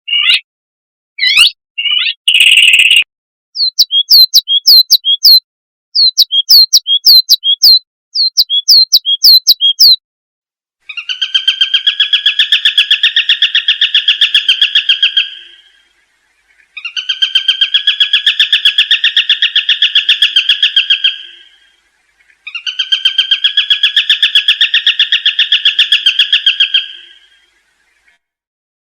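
Shrike calling: first a few short notes and runs of quick downward-sweeping whistled notes, then three long, fast pulsed trills of about four to five seconds each with short pauses between.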